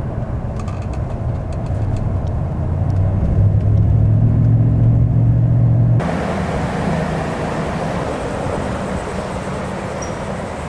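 Motor vehicle engine running, slowly rising in pitch and growing louder for about six seconds, then cut off abruptly by a steady rushing noise like wind or road noise.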